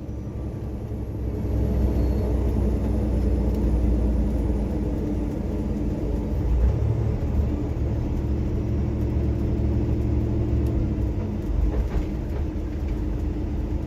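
Loaded semi truck's diesel engine running under load, heard from inside the cab: a steady low drone that grows louder about two seconds in.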